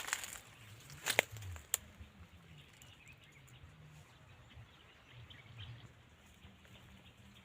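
Faint outdoor background noise, with a few sharp clicks or knocks in the first two seconds.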